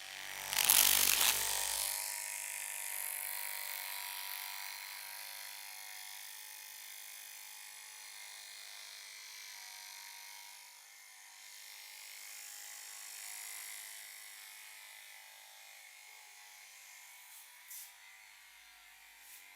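Hands rubbing hard through hair and scalp: a loud rustling rub about a second long near the start, then softer rubbing that slowly fades, with two faint clicks near the end.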